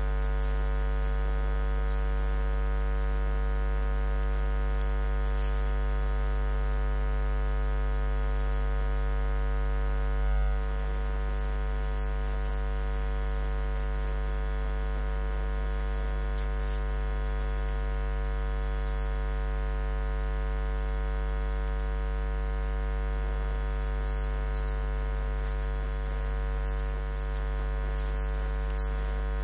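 Loud, steady electrical mains hum: a low 50 Hz drone with a stack of overtones, unchanging throughout and with no voice over it. A faint low thump comes about ten seconds in.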